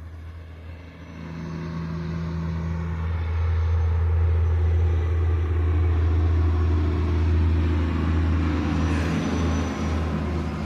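A motor vehicle running close by with a steady low rumble. It grows louder over the first few seconds and then holds steady.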